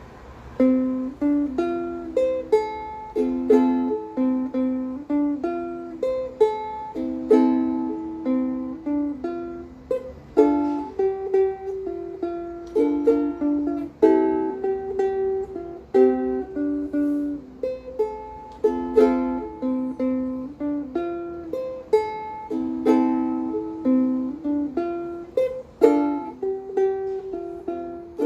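Solo fingerstyle ukulele playing a melody with plucked chords: a KoAloha long-neck soprano ukulele, notes struck and left to ring in a steady flowing rhythm.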